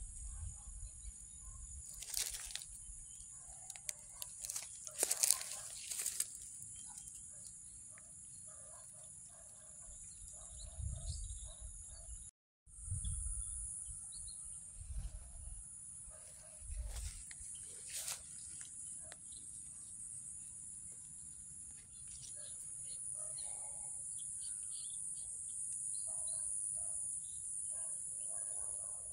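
Steady high-pitched insect chorus in a rural garden, with a few sharp rustling noises about two and five seconds in and again later. The sound cuts out for a moment near the middle.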